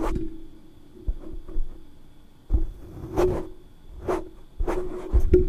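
Handling noise close to the microphone: a string of knocks and rustles, about half a dozen, over a steady low hum.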